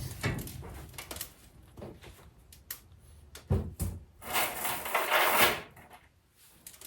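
Handling noises from assembling a sheet-metal welding cart: scattered clicks and light knocks, two sharper knocks a little past halfway, then a scraping rustle lasting about a second.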